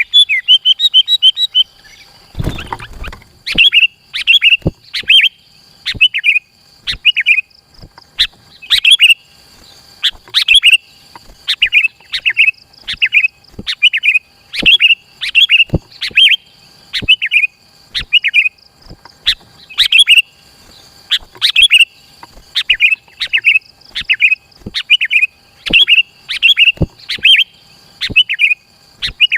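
Sooty-headed bulbul (kutilang) calling over and over in short, bright chirping phrases, about one a second, with a quick run of notes at the start. The calls are loud and close.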